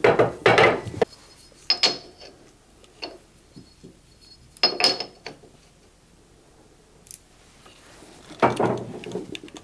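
Short metallic clinks and rattles in about six separate bursts, a few of them ringing briefly: bolts and a hex key being handled while a riser is bolted under a CNC machine's X-rail.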